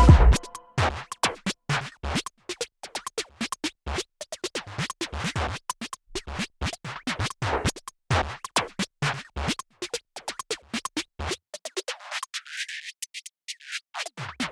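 Electronic background music in a sparse break: irregular clicking, scratch-like percussion without the bass beat, with the low end swept away by a filter near the end.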